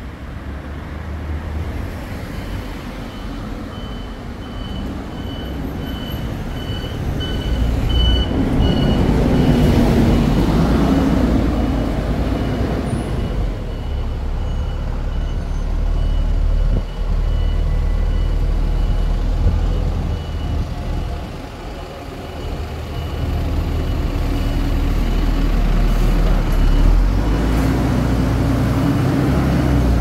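Street traffic: the deep engine rumble of a heavy vehicle, swelling as traffic passes about ten seconds in. A high-pitched beep pulses quickly for several seconds near the start, then fades to a faint steady tone.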